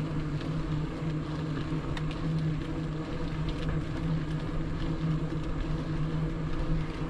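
Bicycle riding noise while pedalling along a flat trail: steady tyre rumble and wind on the microphone, with a low, slightly pulsing hum and a few faint ticks.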